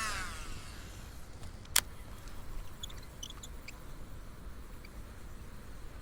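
Fishing line whizzing off the reel at the end of a cast, falling in pitch and dying away in the first half second, then a single sharp click about two seconds in. A steady low background noise and a few faint high chirps run underneath.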